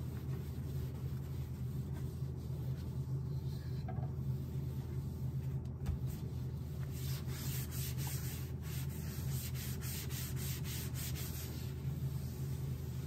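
Cloth in rubber-gloved hands rubbing and wiping across the glass top of an induction hob, with a steady low hum underneath.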